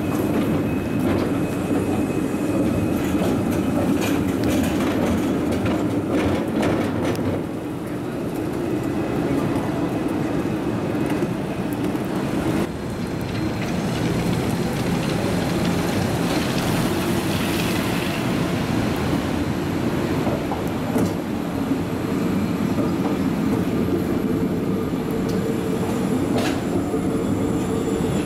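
Electric street trams running on city street track: a steady rumble of steel wheels on rail. A tram passes close at the start and another at the end, with a brief higher wheel squeal about two-thirds of the way through.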